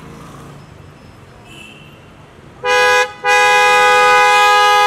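A two-note car horn honks: a short toot about two and a half seconds in, then, after a brief break, a long loud honk held to the end.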